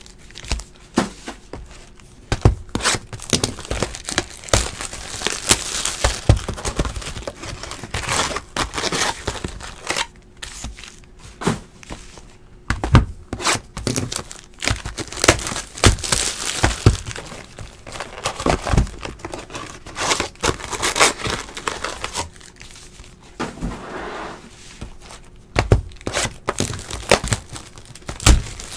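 Plastic baseball card packs being torn open and their wrappers crinkled as the packs and cards are handled, with occasional sharp knocks in between.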